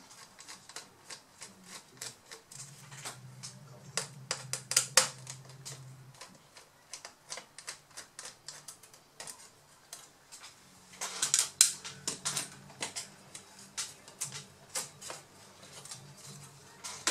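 Rapid small clicks and rattles of plastic and metal as a Lenovo B50-80 laptop's hard drive is worked loose and lifted out of its bay, with louder clusters about four seconds in and again about eleven seconds in.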